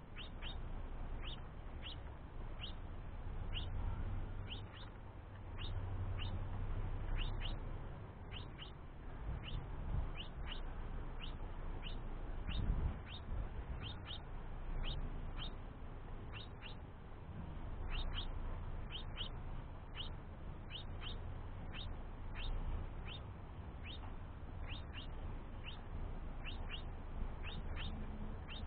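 House finch fledgling's begging calls: short, sharply falling high chirps repeated about twice a second, with a low rumble underneath.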